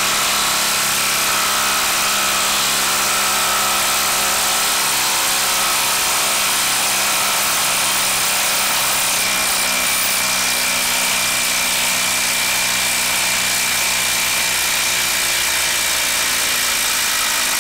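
Milwaukee 2850-20 M18 brushless 1/4-inch hex impact driver hammering steadily as it drives a long screw down into a log's end grain, running on a nearly drained 2 Ah battery.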